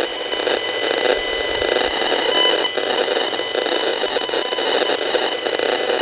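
Safe and Sound Pro II broadband RF meter's audio output screaming: a continuous, pulsing electronic buzz with a steady high tone over it, the meter turning the microwave signals it picks up into sound. The uploader puts the signal down to a distant cell tower, with the meter reading in its moderate range.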